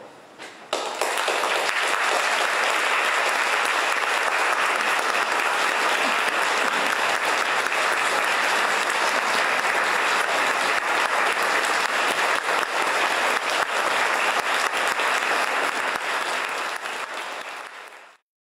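Concert-hall audience applauding, breaking out suddenly less than a second in and holding steady. It thins out and cuts off abruptly near the end.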